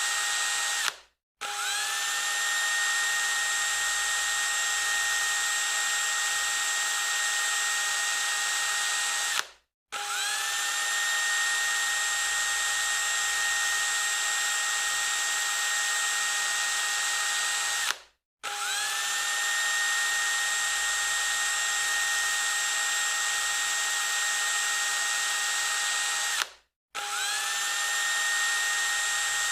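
Electric drill running flat out with a steady high whine. Three times, about every eight and a half seconds, it cuts off suddenly for a moment and spins straight back up, the pitch rising quickly to full speed.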